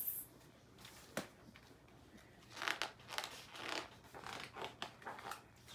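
Pages of a large hardcover picture book being handled and turned: a sharp click about a second in, then several soft paper rustles.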